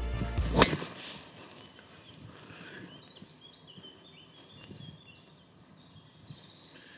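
A golf club strikes the ball off the tee with one sharp crack about half a second in; the golfer reckons he is catching his tee shots a little low on the clubface. Then birds chirp and twitter.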